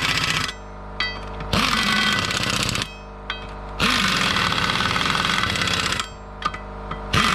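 Impact wrench on a low setting, hammering in four bursts with short pauses between, as it runs up and tightens the wheel nuts on a Gaz66 split-rim wheel.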